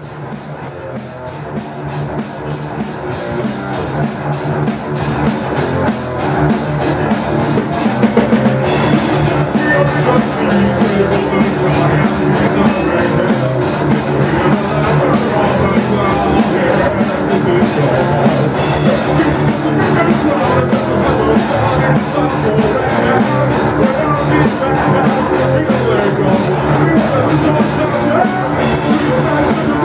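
Heavy metal band playing live: distorted electric guitar and a drum kit with cymbal crashes, growing louder over the first several seconds, with bright cymbal washes about every ten seconds.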